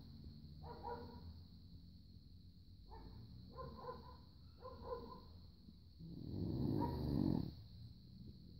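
A sleeping Rhodesian Ridgeback snoring. There are several short, softer snores, one about a second in and three between three and five seconds, then a long loud snore about six seconds in.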